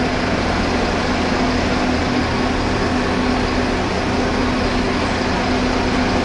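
Flexity Berlin tram standing at a stop with its doors open: a steady hum and ventilation hiss from the tram's equipment, with a steady mid-pitched tone that stops about four seconds in.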